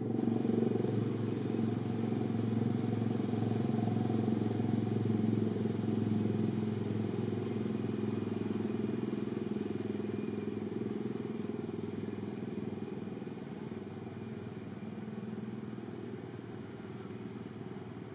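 A motor vehicle engine running steadily as a low hum, slowly fading away.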